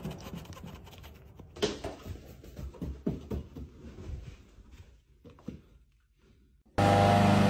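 Scattered thumps and knocks of a person hurrying indoors and dropping onto a couch, then a moment of near silence. Near the end a loud steady noise with a low hum cuts in abruptly.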